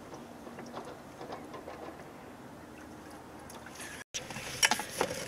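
Faint, steady open-water ambience aboard a small boat: a low wash of wind and water with a few soft ticks. About four seconds in, the sound cuts to a car cabin, where several sharp clicks and knocks follow.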